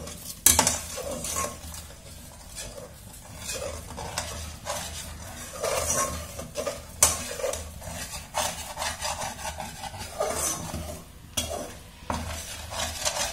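Metal perforated skimmer stirring and scraping scrambled eggs around a pan in irregular strokes, with a few sharp clinks of metal on the pan rim, over eggs sizzling in hot oil.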